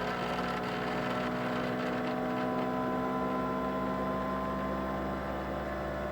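Qidi X Plus 3 Core XY 3D printer's tool head being vibrated by its stepper motors during the Klipper input-shaper resonance test: a steady buzzing hum made of several tones at once.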